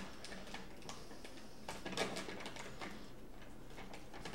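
Faint crinkling and ticking of a foil inner seal being peeled off a plastic protein powder tub, with a few sharper crackles about two seconds in.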